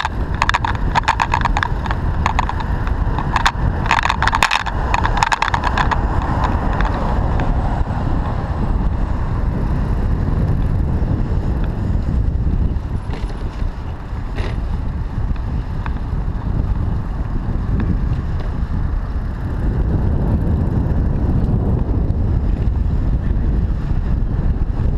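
Riding noise from a camera mounted on a moving bicycle: a steady low rumble of wind on the microphone and tyres on the road. Over the first six seconds or so, a quick run of rattling clicks rides on top.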